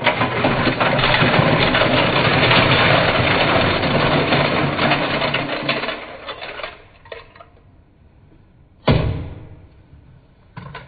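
Dozens of small toy cars sliding and clattering out of a tipped plastic toy dump truck bed onto a pile, a dense rattle that thins to scattered clicks after about six seconds. A single sharp knock comes about nine seconds in.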